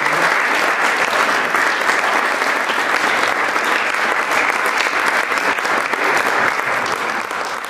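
Audience applauding, a dense, steady clapping that begins to die down at the very end.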